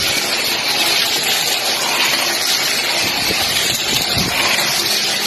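Battery-style toy race cars running on a plastic racetrack: a steady high whirring hiss of their small motors and wheels.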